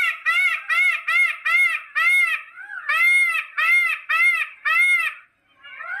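Indian peafowl (peacock) calling: a rapid series of short notes, about three a second, each rising and falling in pitch. The calls come in two bouts with a brief break about two seconds in, stop about five seconds in, and fainter calls start again near the end.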